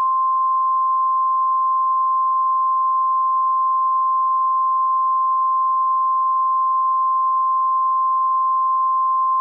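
Single-tone emergency alert attention tone, in the style of the 1050 Hz Weather Radio alarm: one loud, steady, unbroken beep at a single pitch.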